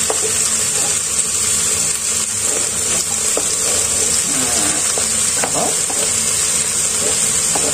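Meat and peppers sizzling steadily in a hot stone-coated frying pan as they brown. Diced carrots are scraped off a plastic cutting board with a knife and tipped in, giving a few short knocks and scrapes over the sizzle.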